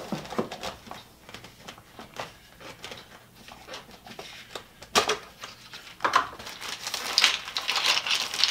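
Light clicks and knocks as HDPE bottle caps and the plastic blender jar are handled, with one sharp knock about five seconds in. Toward the end a plastic bag crinkles and caps clatter as more are fetched from it.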